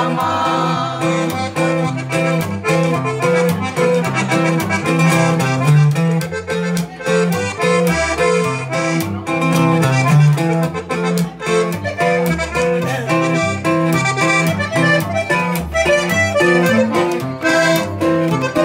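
Norteño band instrumental break: a diatonic button accordion plays the melody over guitar strumming and an upright bass line on a steady beat.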